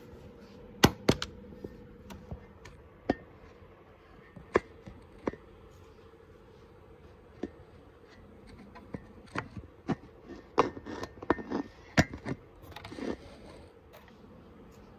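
Handling noise from a phone being moved and propped up for filming: scattered knocks, taps and rubbing right at the microphone. The loudest knocks come about a second in and in a busy cluster from about nine to thirteen seconds in. A faint steady hum runs underneath.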